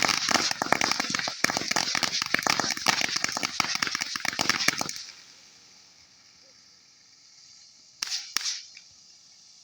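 Consumer fireworks crackling: a dense, rapid run of small pops that stops abruptly about five seconds in. About three seconds later come two short, sharp sounds in quick succession.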